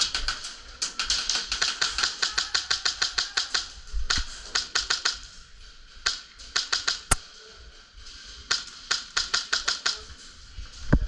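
Airsoft rifle with a PolarStar Jack HPA engine firing rapid strings of shots, several a second, in a long burst and then several shorter bursts with brief pauses. One louder single crack about seven seconds in.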